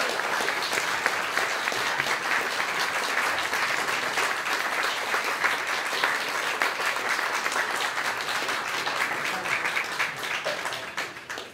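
Audience applauding: many hands clapping at once, fading out near the end.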